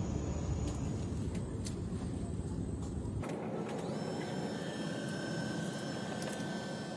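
Steady aircraft cabin noise, a deep rumbling hum that cuts off abruptly about three seconds in, leaving a lighter hiss with faint steady high tones.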